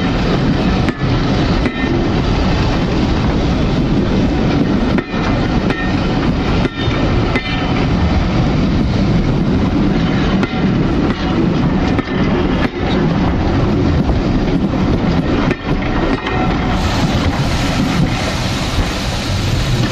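A train of passenger coaches rolls past close by, its wheels clacking over the rail joints in a string of uneven clicks over a steady rumble of running gear. The last coach passes near the end.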